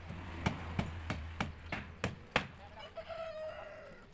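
Hammer blows on wooden column formwork, about three a second, stopping after a couple of seconds. Near the end a rooster crows once, one held call falling slightly in pitch.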